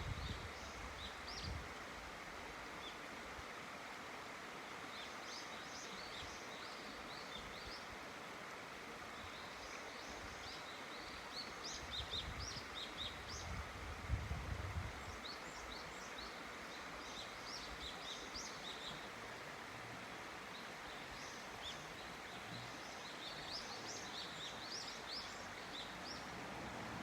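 Steady rush of flowing river water, with small birds chirping in short clusters of high notes on and off throughout. Two brief low rumbles about halfway through.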